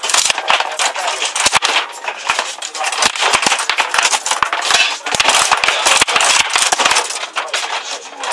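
Foosball table in fast play: irregular sharp clacks and knocks of the ball against the plastic players and table walls, and of the steel rods being worked, coming in quick runs over a steady background noise.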